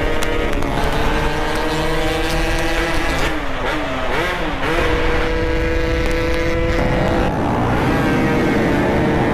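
Motorcycle engine running hard under way, its pitch mostly held steady with quick dips and rises about four seconds in as the throttle is worked.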